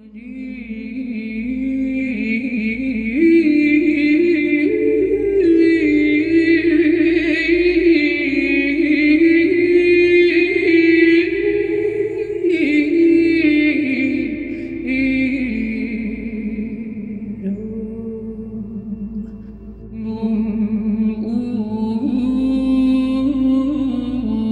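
Festive chant sung unaccompanied: a slow melodic line moving stepwise with ornamented turns. The singing thins out about three-quarters of the way through, then picks up again.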